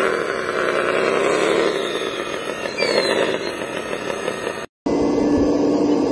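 Radio-controlled wheel loader running, its motor sound dipping and rising in pitch as it moves. After a sudden break near the end, a radio-controlled hydraulic excavator hums steadily as its bucket digs into soil.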